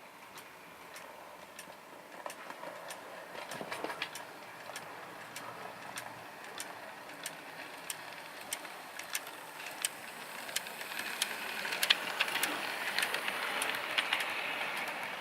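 HO scale model steam locomotive running on its track: a faint motor whir with light clicks about one to two times a second, growing louder in the last few seconds.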